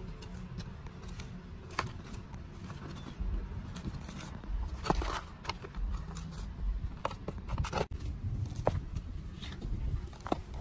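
Small metal hand trowel scraping and scooping dry, crumbly soil, with the soil and clods dropping into a plastic plant pot; irregular scrapes and sharp ticks.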